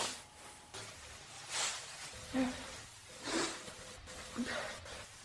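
A person with hay fever breathing in short, noisy sniffs and puffs about once a second, a sharp breathy burst at the very start and two of the breaths catching in the throat, in the middle of a sneezing fit.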